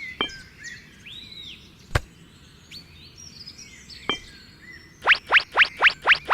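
Birds chirping, with a sharp click about every two seconds. Near the end comes a loud, fast run of rising sweeps, about four a second.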